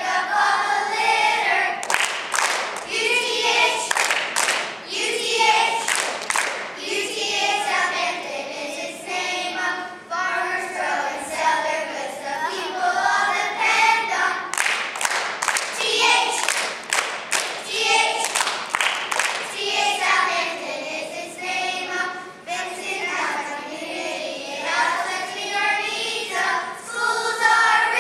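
A class of young schoolchildren singing a song together as a group.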